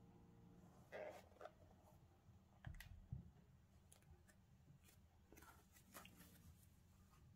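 Faint rustles and soft knocks of a Nike Air Max Plus 3 sneaker and its felt insole being handled with cotton gloves: a rustle about a second in, two low knocks near three seconds as the shoe is set down, and more rustling around six seconds.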